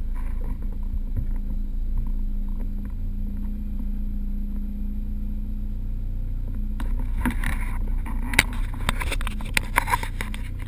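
Renault Clio 16S rally car's 16-valve four-cylinder engine running at low, steady revs, heard inside the cabin. From about seven seconds in, a run of sharp clicks and knocks joins it.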